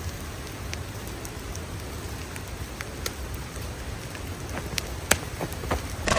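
Wood campfire crackling: scattered sharp pops over a steady hiss, one louder pop about five seconds in.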